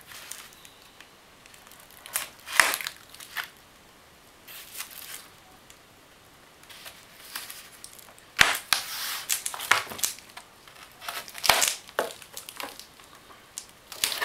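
Bubble wrap and duct-taped plastic packaging being cut open and pulled off a monitor, crinkling and tearing in irregular bursts with quiet gaps, busiest in the second half.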